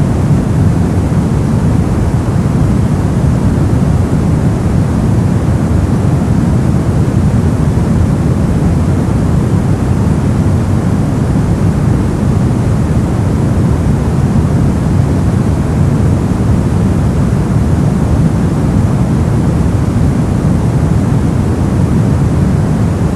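Brown noise: a steady, deep rushing hiss with most of its weight in the low end, unchanging throughout.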